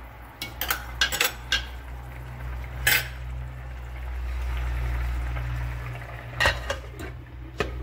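Metal clinks on a stainless steel cooking pan: a few sharp taps in the first seconds and a louder one about three seconds in, then a glass lid clattering onto the pan about six and a half seconds in, over a steady low hum.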